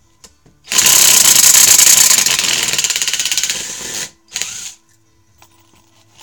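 Harbor Freight (Chicago Electric) 12V lithium-ion 1/4-inch hex impact driver hammering on a screw to back it out, a loud rapid knocking for about three seconds, then a short second burst.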